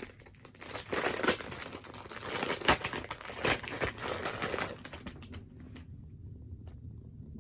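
Plastic packaging bag crinkling and crackling as a foam squishy is unwrapped, with sharp crackles, dying away about five seconds in.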